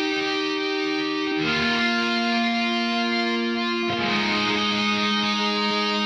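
Outro music: sustained distorted electric guitar chords that change about every two and a half seconds, with no drums yet.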